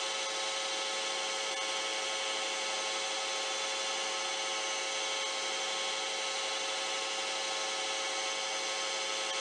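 Steady machine hum with an even hiss, unchanging throughout and with no distinct knocks or clicks.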